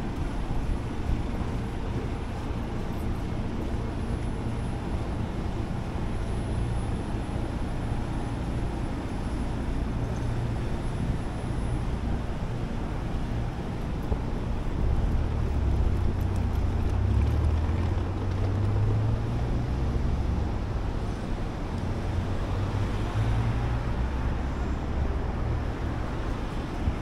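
Street traffic noise heard while walking: a steady low rumble of passing vehicles that swells for several seconds past the middle, then eases.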